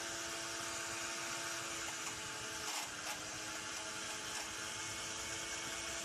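Handheld hair dryer running steadily: a hiss of blown air under a steady motor whine, heating the microwave oven's membrane keypad to soften the glue between its layers. There is a brief handling bump about three seconds in.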